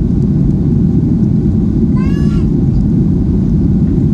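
Steady low rumble of a jet airliner's cabin in flight, engines and airflow heard through the fuselage. About two seconds in, a brief high-pitched voice-like sound rises over it.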